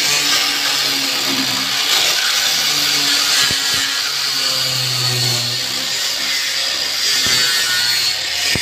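A power tool running steadily on wood, with a continuous high motor whine over a dense hiss.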